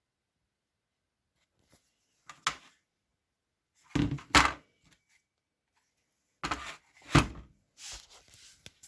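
A few short knocks and clatters of objects being handled and set down, in four spaced groups with silence between. The loudest is a double knock about four seconds in.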